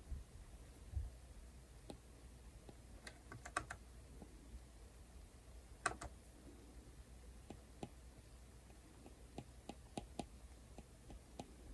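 Faint, irregular clicks of a plastic stylus tip tapping on a tablet's glass screen while drawing. There is a quick cluster about three seconds in and a louder single tap near the middle, over a faint low hum.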